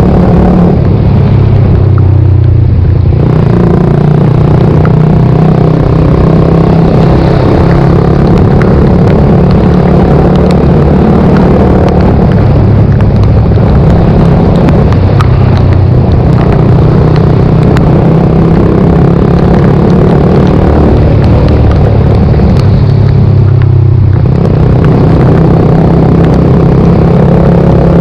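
Suzuki GSX-R125's single-cylinder four-stroke engine running steadily while the bike is ridden. Its note drops lower for a couple of seconds just after the start and again about three-quarters of the way through, then climbs back.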